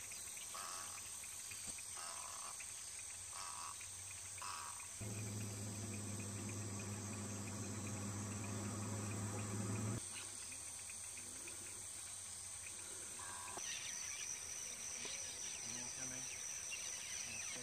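Insects trilling steadily at a high pitch, with a second, slightly lower trill joining in later. In the first few seconds there are about five short calls, roughly one a second, and a steady low hum runs for about five seconds in the middle.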